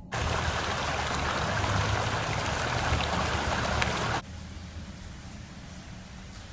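Stream water rushing over rocks: a loud, steady rush that starts suddenly and cuts off abruptly about four seconds in, leaving faint outdoor ambience.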